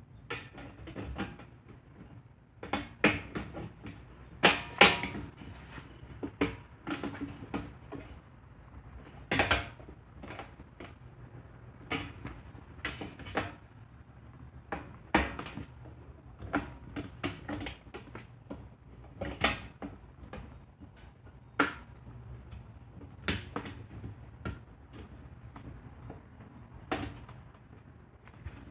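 Irregular knocks, clicks and rubbing from the plastic housing of a box fan being handled and wiped down during cleaning, with no set rhythm.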